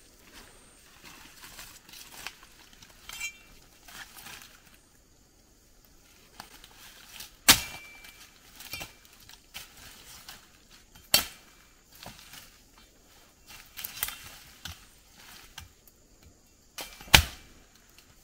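Chopping strikes of a metal blade into a thick ayahuasca vine. There are three loud strikes several seconds apart, some with a short ring, and lighter knocks between them.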